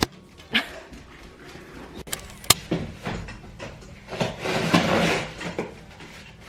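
A few sharp clicks and knocks, then about a second and a half of rustling, as objects are handled.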